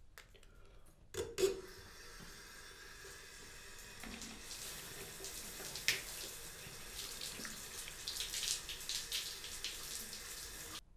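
Bathroom mixer tap running into a vessel basin, with splashes and clicks of water being handled in the basin. A knock comes about a second in, and the sound cuts off suddenly near the end.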